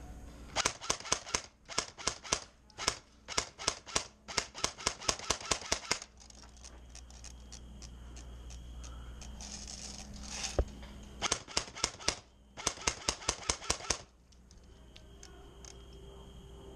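Airsoft guns firing in two runs of rapid, sharp snapping shots, several a second. The first run starts just after the beginning and lasts about five seconds; the second comes about eleven seconds in and lasts about three. A single thump falls between them.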